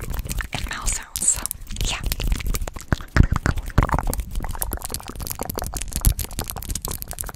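Fast, irregular ASMR mouth sounds and hand sounds right against a microphone: quick wet clicks and crackles mixed with rubbing and low bumps from hands brushing and handling the mic.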